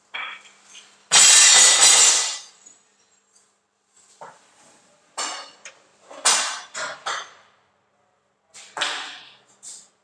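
Irregular metal clanks and knocks from hand work inside a concrete mixer's engine compartment. About a second in comes a louder rushing noise lasting over a second, and further knocks follow in clusters about five to seven seconds in and again near nine seconds.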